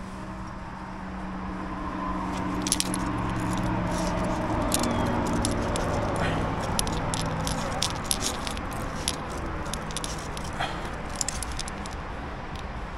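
Metal climbing gear on a trad rack, carabiners and protection, clinking in quick, irregular clicks as the climber moves on the rock. Under it a low, steady drone swells and fades over the first half.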